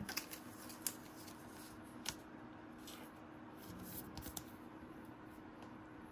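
Basketball trading cards being handled and flipped through one at a time: a few faint, soft flicks and taps of card stock, scattered, with a small cluster about four seconds in.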